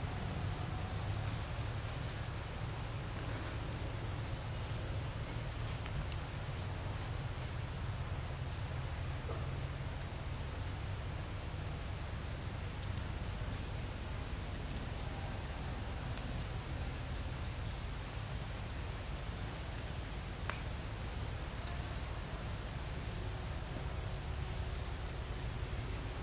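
Insects chirping in short, high-pitched calls that repeat every second or so, over a steady low rumble.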